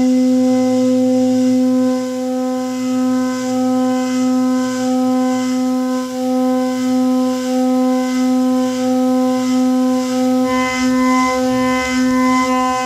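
CNC milling machine cutting metal: a steady, loud whine with many overtones that holds one pitch. A few more overtones and a low rumble join about ten seconds in, as the cut changes.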